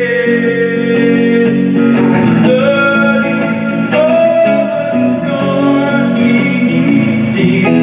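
Live band music: long held sung notes over guitar chords.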